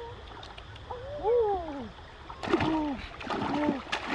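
Splashing in shallow river water as hands thrash and grab at fish, starting about halfway through and continuing to the end.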